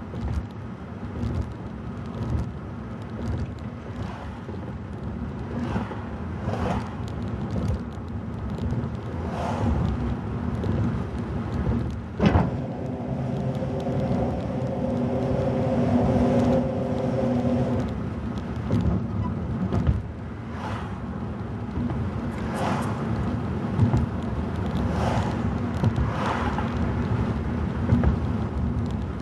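Car road and engine noise heard from inside the cabin while driving at speed, a steady low drone with a light thump every second or two as the tyres cross joints in the bridge deck. A single sharp click sounds near the middle, followed by a brief humming tone lasting a few seconds.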